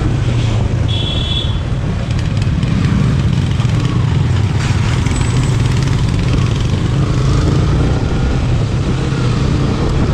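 Motorcycle engine running steadily while riding, heard close up from the bike's own camera, with road noise. A short high-pitched beep sounds about a second in.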